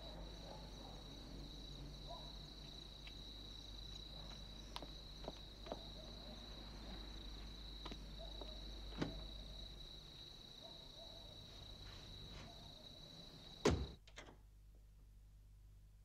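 Night insect chorus, crickets giving a steady high trill, with a few faint clicks. Near the end there is one loud thump, after which the insect sound cuts off.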